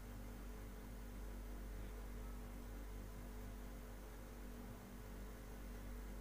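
Faint, steady low electrical hum with a light hiss underneath: room tone with nothing else standing out.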